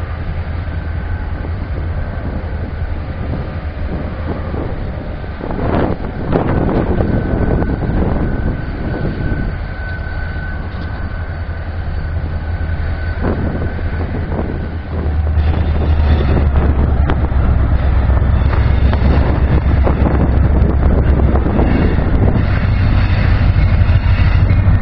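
EMD GP38-2 diesel locomotive running as it approaches, a steady low engine rumble that grows clearly louder a little past halfway as it draws near, with wind on the microphone.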